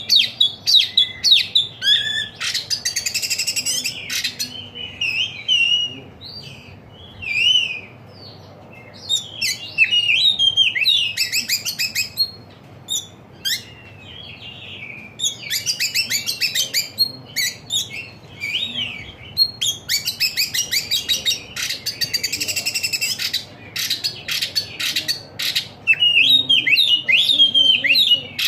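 A songbird singing a varied, chirping song. It moves between whistled notes and long runs of fast, rattling trills, in bursts with short pauses between them.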